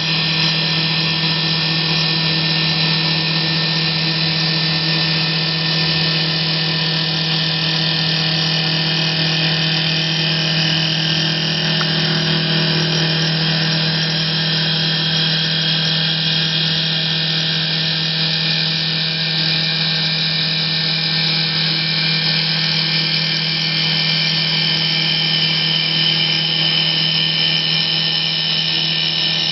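CNC wood turning lathe running and cutting a spinning wooden spindle: a steady motor hum with a high hiss from the cut, unchanging throughout.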